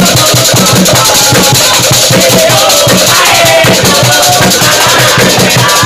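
Obrog sahur percussion troupe playing a fast, loud, steady rhythm, with a group chanting over it in the style of football supporters.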